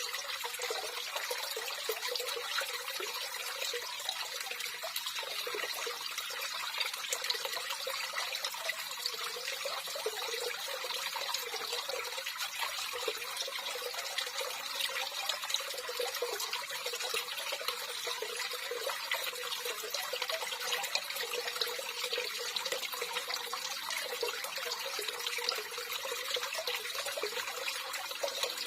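Running water, a steady trickling and splashing flow with no break or change, mostly high splashy sound with little low rumble.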